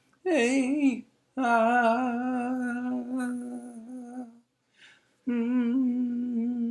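A solo voice singing a slow, wordless melody in long held, wavering notes. It comes in three phrases with short breaths between them, the middle phrase a long sustained tone.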